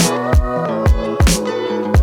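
Background music: a hip hop / R&B beat with sustained melodic notes and a regular kick-and-snare rhythm.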